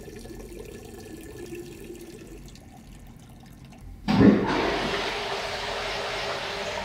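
Toilet flushing: a sudden loud rush of water starts about four seconds in and keeps running, after a few seconds of faint steady background.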